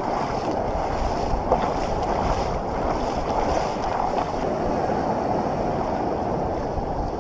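Small surf waves washing over the sand and foam sliding around the angler's feet: a steady, even rushing of shallow water.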